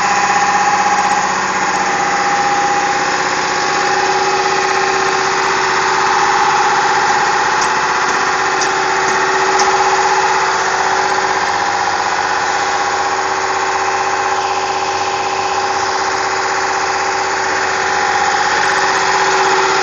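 HS SAM75 pocket spring assembler running steadily: a continuous mechanical drone with a held whine that does not change.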